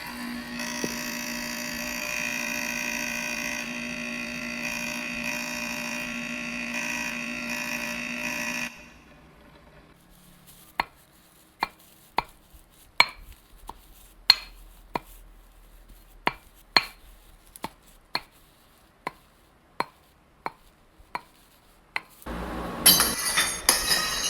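Kitchen sound effects in sequence. First a steady appliance-like hum with several fixed tones, which stops about nine seconds in. Then a run of sharp clinks or knocks about every half second to a second, and near the end a short loud noisy burst.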